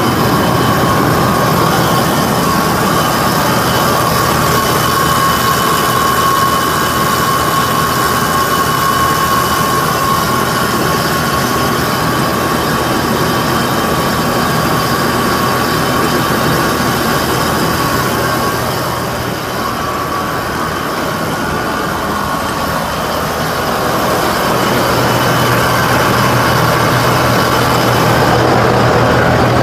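Bear Cat 1260 feed grinder running under power, its hammer mill, belts and auger turning with a steady mechanical drone. A steady high whine rides over it and fades about two-thirds of the way through, and the running grows a little louder near the end.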